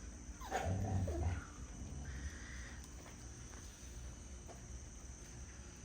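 A husky puppy whining briefly about half a second in, over a steady high-pitched chirring.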